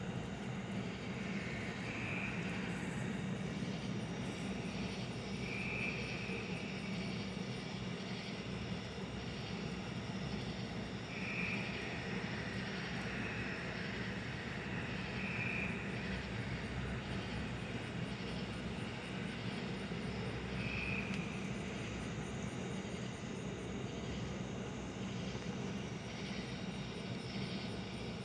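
Steady low rumble of distant engines or machinery, even in level throughout, with a few short, faint high chirps every few seconds.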